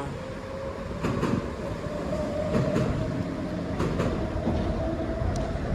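A passing vehicle's steady rumble with one held tone that rises slightly, and a few faint knocks.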